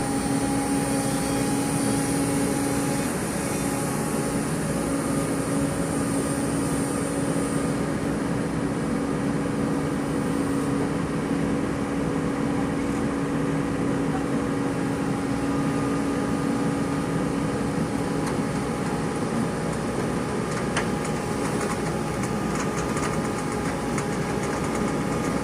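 Excavator's diesel engine running steadily, with a high whine that fades out about eight seconds in.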